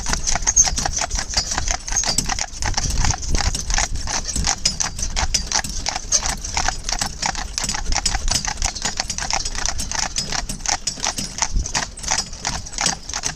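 Hooves of a pair of Friesian mares trotting on a paved road, a quick, steady clip-clop from the two horses pulling a carriage.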